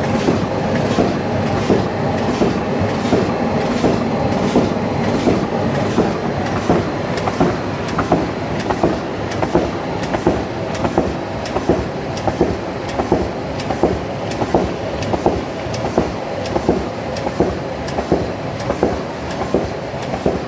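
Automatic sheet-to-sheet mounting machine running at production speed: a steady mechanical clatter with a regular sharp clack about twice a second as sheets are fed through.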